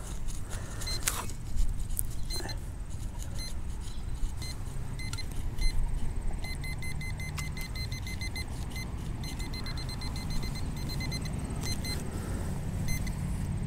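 Metal detector gear giving short electronic beeps while homing in on a buried coin. The beeps come in quick runs around the middle and again near the end. A few clicks and scrapes of digging come early on, over a steady low rumble.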